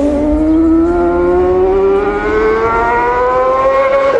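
A motor speeding up: one pitched whine that climbs slowly and steadily in pitch, over a low rumble.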